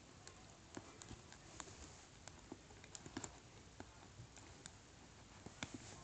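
Faint, irregular small clicks and taps of plastic LEGO bricks being handled as fingers push and slide the pieces of a LEGO sliding puzzle box.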